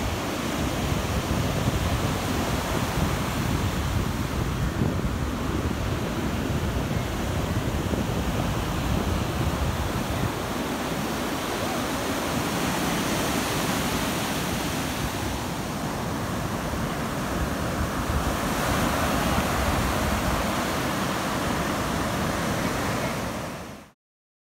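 Ocean surf breaking and washing up a sandy beach, with wind rumbling on the phone's microphone; it cuts off abruptly near the end.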